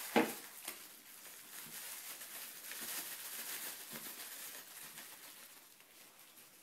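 Bubble wrap being unwrapped by hand: a sharp click just after the start, then a few seconds of plastic rustling and crinkling that fades near the end.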